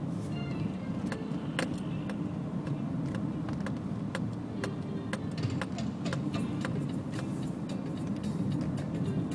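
Inside a car driving slowly over a rough, broken road surface: a steady low rumble of tyres and engine, with frequent sharp clicks and rattles throughout.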